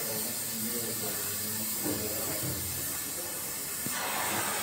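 Steady hiss of background noise picked up by a phone's microphone, with faint indistinct low sounds under it; the noise grows brighter about four seconds in.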